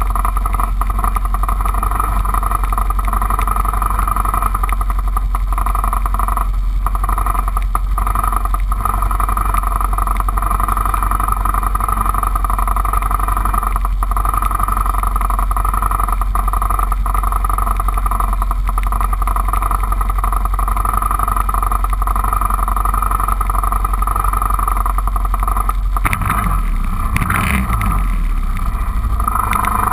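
Four-wheeler (ATV) engine idling steadily, picked up by a camera mounted on the machine, with a brief change in the sound about 26 seconds in.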